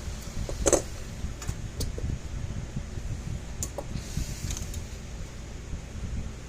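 A steady low fan hum, with a few sharp clicks and taps of small parts and tools being handled: the loudest about a second in, several fainter ones after, and a short rustle about two-thirds of the way through.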